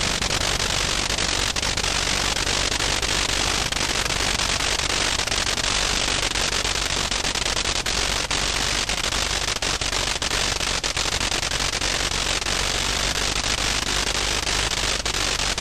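Vintage rotary aero engine running steadily during a ground run, a dense crackling exhaust note over a steady low hum.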